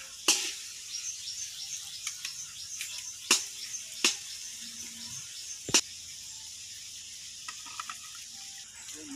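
Hard-boiled eggs being cracked against a steel pot and peeled by hand, with a few sharp taps of shell on metal and light wet handling sounds in between.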